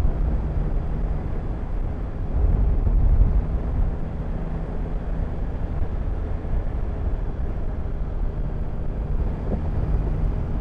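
Yamaha Tracer 9 GT's three-cylinder engine running at a steady cruise, heard under steady wind rush on the riding microphone.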